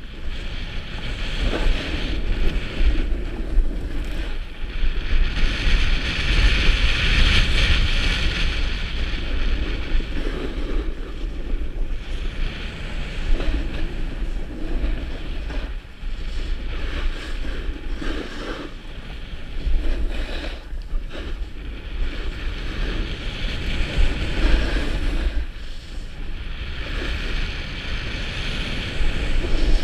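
Wind buffeting a helmet-mounted camera's microphone at skiing speed, a steady low rumble, with the hiss of skis sliding on packed snow swelling and fading several times as the skier turns.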